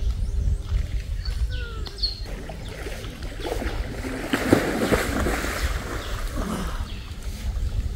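River water splashing as people wade in waist-deep and one plunges in to swim. The splashing builds from about three seconds in, is loudest around five seconds, then dies down.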